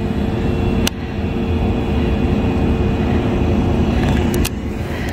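Steady engine rumble of a motor vehicle, with a faint constant hum, and light clicks about a second in and near the end.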